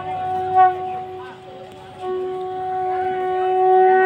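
Conch shell blown in long, held notes at one steady pitch: a short note at the start, a lull of about a second, then a longer note that swells louder toward the end.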